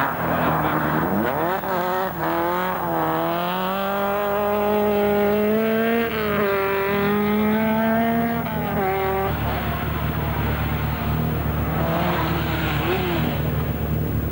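Rally car engine at full throttle as the car accelerates away, pitch climbing, then dropping and climbing again about six seconds in at a gear change, cutting off about nine seconds in. After that the lower rumble of another rally car's engine approaching.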